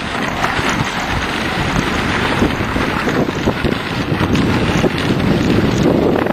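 Wind buffeting the microphone over the hiss and scrape of dog-sled runners gliding on snow, broken by frequent small knocks and scrapes.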